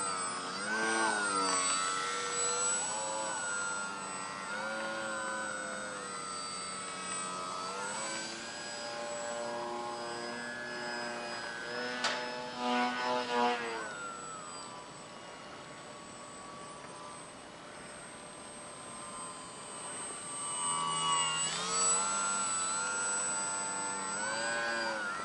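Brushless electric motor and 10x5 propeller of a foam-board RC plane in flight: a whine that rises and falls in pitch with throttle changes and passes. It fades in the middle as the plane flies far off, then grows louder again near the end, with a thin steady high tone above it throughout.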